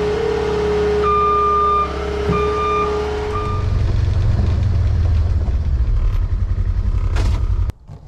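Cat 259D compact track loader running, with a steady whine and its reverse alarm beeping three times. After that a different low engine rumble carries on and stops abruptly near the end.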